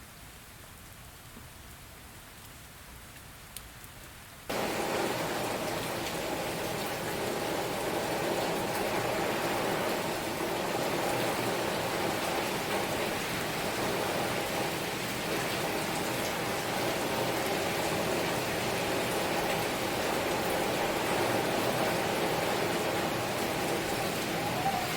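Steady rain falling, a soft hiss at first, then about four and a half seconds in it jumps suddenly to a louder, fuller downpour that keeps on steadily.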